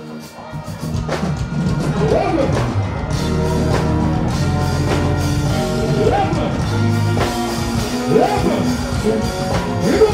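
Dancehall music played loud over a festival sound system, with heavy bass and drums and a voice on the microphone over the beat. The music swells up over the first second.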